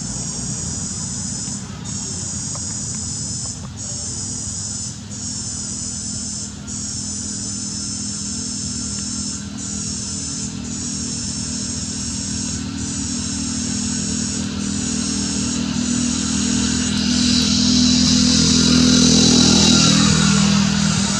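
High-pitched insect drone, breaking off briefly every second or two, over a steady low motor hum. The hum grows louder about three-quarters of the way through as a motor vehicle passes close by.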